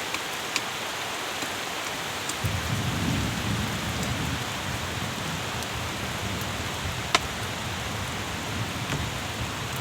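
Steady rain hissing, with scattered sharp drip ticks, the loudest about seven seconds in. A low rumble joins about two and a half seconds in and carries on.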